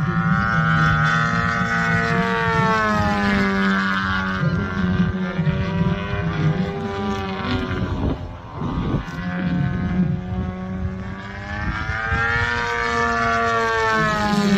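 Engine and propeller of a radio-controlled aerobatic plane running hard in flight, its pitch rising and falling as it manoeuvres past. The sound fades briefly about eight seconds in, then builds again.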